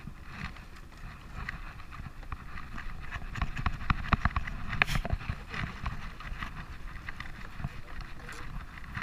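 Daiwa Ryoga baitcasting reel cranked by hand in a jigging rhythm, with quick, uneven clicks and knocks from the handle and gear as the rod is worked. The clicks come thickest and loudest a few seconds in.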